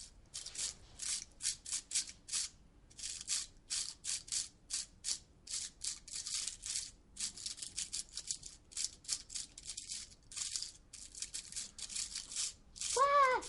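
A hand shaker like a maraca, shaken in short irregular strokes, about two to four a second. Near the end comes one loud rising-and-falling meow-like vocal call.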